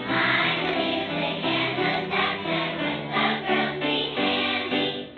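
A group of voices singing a song together with musical accompaniment.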